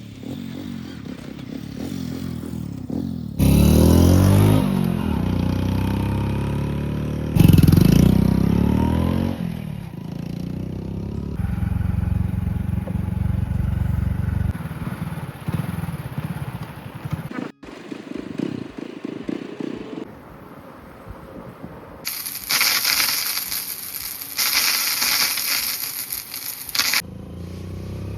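A vehicle engine running and changing speed, heard in short clips that cut abruptly from one to the next, with stretches of hiss near the end.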